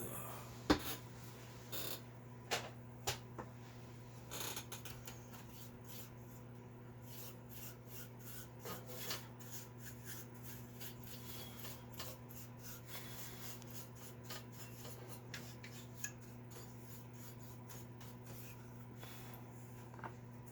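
Hands handling the plastic case and circuit board of a Commodore 64: scattered clicks, taps and short rubbing scrapes, with a sharper knock about a second in. A steady low electrical hum runs underneath.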